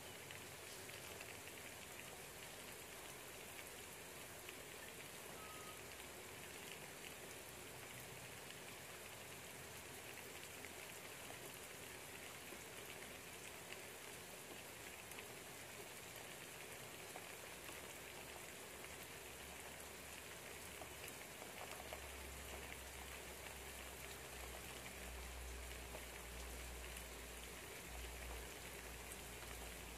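Light rain pattering steadily outside a window, faint. A low rumble joins about two-thirds of the way through.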